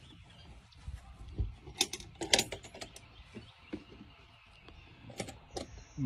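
Lid of a homemade plastic-barrel washing machine being closed and its latch handled: a dull knock, then a cluster of sharp clicks and rattles about two seconds in, with a few more clicks near the end.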